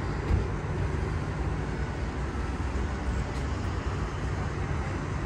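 Steady outdoor background noise with a strong low rumble, of the road-traffic kind.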